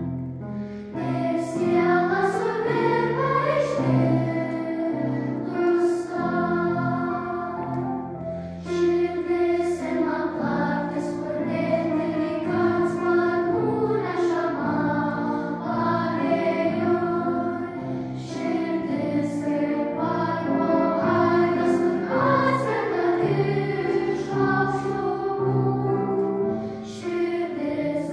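Children's choir singing a song in sustained phrases, accompanied by piano.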